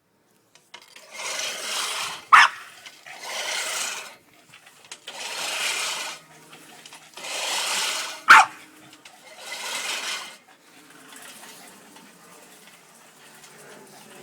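Manual push lawnmower run back and forth, its blades giving five rasping whirs of about a second each, one every two seconds or so. A Boston terrier barks sharply twice, about two seconds in and again about eight seconds in, louder than the mower.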